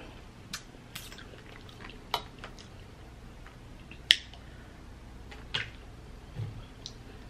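A few faint, scattered clicks and taps from crab-leg shells being handled and shifted on a platter, the sharpest about four seconds in.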